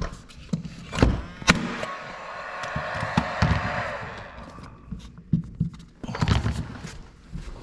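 Sharp knocks on a wall during baseboard trim work, from knocking to find the wood behind it and from fastening the trim. There are two loud strikes about a second in and a cluster of knocks near the end, with a steady pitched tone in between.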